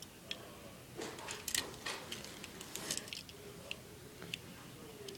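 Faint, scattered light clicks and taps of a die-cast Lightning McQueen toy car being handled and turned over in the hand.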